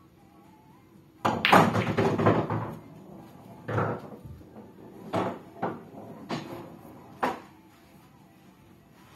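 A pool break or shot: the cue strikes the cue ball and the balls clack together in a quick loud cluster of hits, followed by several separate knocks of balls against each other and the cushions over the next few seconds.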